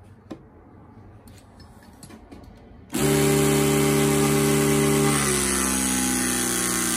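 Battery-powered hydraulic crimping tool starts up about three seconds in and runs loud and steady while it presses a terminal lug onto a heavy battery cable. Over the last couple of seconds its pitch slowly sinks as it bears down on the crimp.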